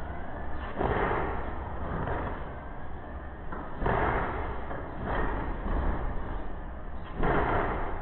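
Boston Dynamics Atlas humanoid robot jumping between plywood boxes, landing with four heavy slams over a steady low rumble.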